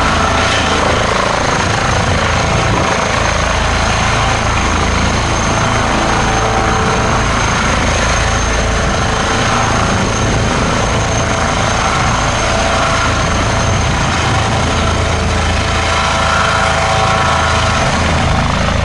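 Airbus H160 helicopter with its twin Safran Arrano turboshaft engines and Fenestron ducted tail rotor, hovering low and lifting away: loud, steady rotor and turbine noise with a thin, steady high whine on top.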